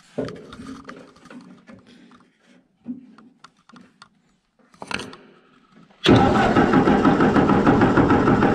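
A few light clicks and rustles of handling, then about six seconds in the Ford 8N's four-cylinder flathead engine is cranked over by the starter without firing: the points are giving no spark.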